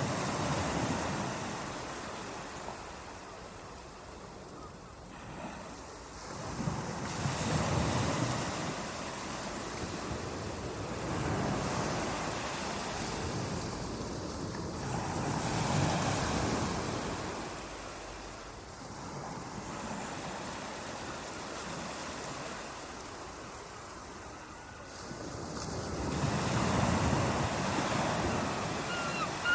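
Ocean waves breaking and washing on a shore, a steady surf noise that swells and fades every few seconds.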